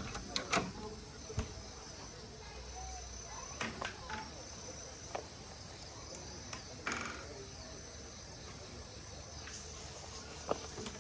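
Insects chirping steadily in the background, with scattered sharp clicks and knocks and faint distant voices.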